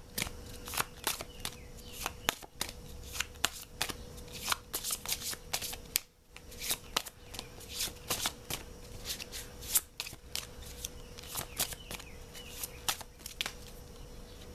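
A deck of Everyday Witch Oracle cards being shuffled by hand: a quick, irregular run of snaps and slaps of card stock, with a brief pause about six seconds in.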